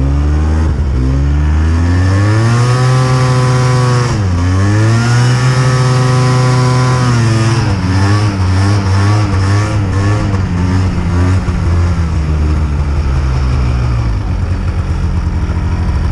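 Arctic Cat Blast snowmobile engine under throttle while riding deep powder: it revs up and holds high, drops sharply about four seconds in, climbs back and holds, then wavers on and off the throttle and settles lower near the end.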